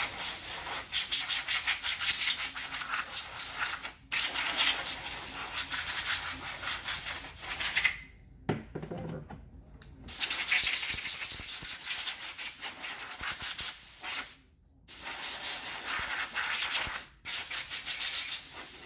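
Compressed air hissing loudly in long blasts as it blows spilled toner off a printer toner cartridge, stopping briefly four times, with a longer pause of about two seconds near the middle.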